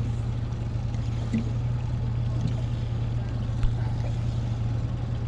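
Outboard motor idling with a steady low hum while the boat sits on the water, and a single short knock about three and a half seconds in.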